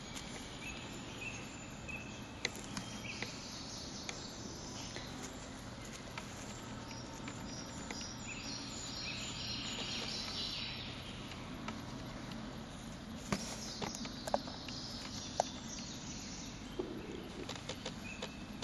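Woodland ambience: steady background noise with small birds chirping, busiest in the middle, and a few sharp clicks in the second half.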